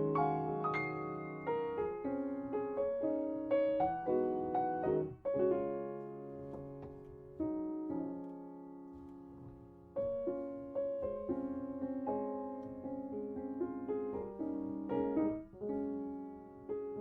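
Background music: slow, gentle solo piano, notes struck one after another and left to ring out.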